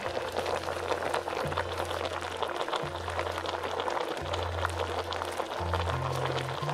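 A pot of vegetable soup bubbling at the boil, a steady crackle of bursting bubbles, under background music with a slow bass line that steps from note to note.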